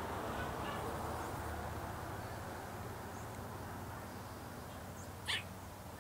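Steady outdoor background rumble and hiss, with one short, high, sharp call about five seconds in.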